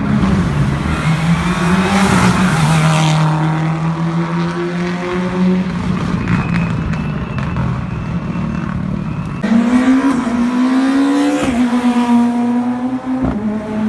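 Rally car engines running hard on a stage. The engine note holds fairly steady, then eases off. About nine and a half seconds in, a louder engine note cuts in and rises in pitch.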